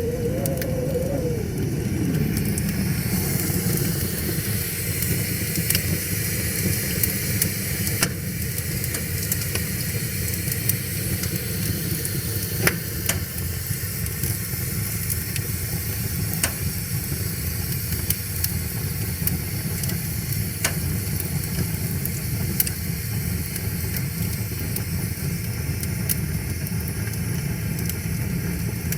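Wood fire crackling, with sharp pops every few seconds over a steady low rushing of river water. A brief falling tone sounds in the first two seconds.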